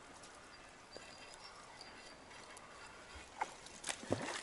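A hooked trout splashing at the water surface: a few short sharp splashes near the end, over a faint steady outdoor hush.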